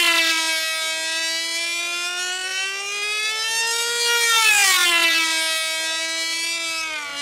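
Control-line rat race model's two-stroke engine running flat out at high revs, a high, siren-like note whose pitch drops sharply as the model passes, near the start and again about four and a half seconds in, and slowly rises again as it comes round.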